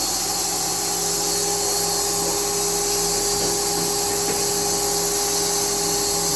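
Automatic sawmill running, a steady machine hum with a constant high hiss.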